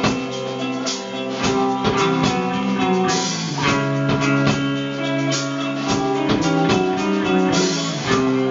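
Rock band playing live: distorted-sounding electric guitars holding chords over a drum kit beating a steady rhythm, an instrumental stretch with no singing.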